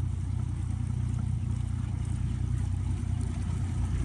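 Small boat's outboard motor running steadily at speed under load, towing a rider on a rope, with the wash of water around the hull.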